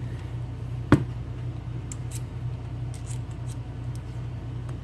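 Small handling noises from a lock cylinder and picking tools: one sharp click about a second in, then a few faint light ticks, over a steady low hum.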